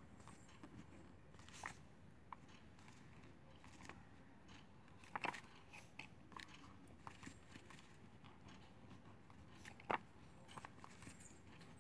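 Faint scratching and irregular light ticks of a pen writing on paper, over near-silent room tone; the sharpest ticks come about five seconds in and again about ten seconds in.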